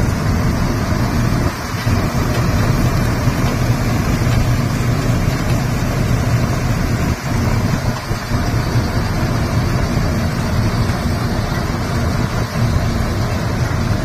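Punni Grain Cruiser combine harvester running steadily at working speed, its engine and threshing machinery making a loud, even drone while grain streams out of the unloading spout into a trolley.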